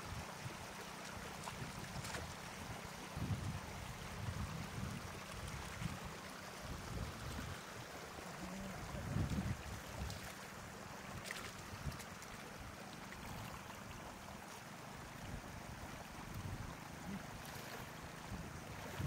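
Steady outdoor water noise with irregular low thuds.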